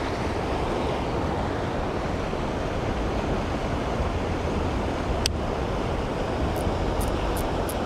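Steady rush of floodwater pouring over a spillway swollen after hard rain. One sharp click about five seconds in, and a few faint high ticks near the end.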